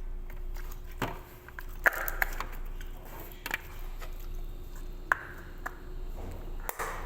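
Food containers and plastic packaging being handled on a table: scattered clicks, taps and short crinkling rustles.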